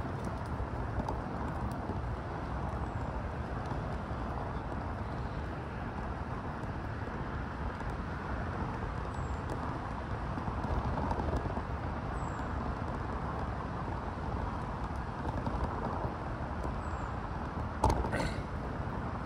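Steady rush of wind and road noise while riding a fixed-gear bicycle, with a short sharp clatter near the end.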